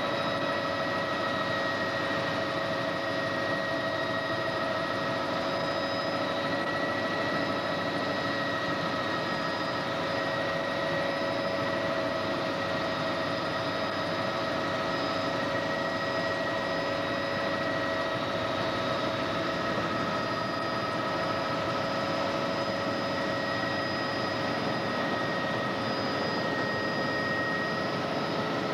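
Helicopter in level flight, heard from inside the cabin: engine and rotor running with a steady whine of several pitches over a constant rushing noise.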